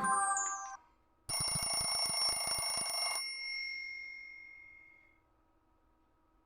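A Nokia X6-00 ringtone playing: a rapid trilling ring of several steady tones, starting about a second in and lasting about two seconds, then fading out. The tail of the previous ringtone cuts off just before it.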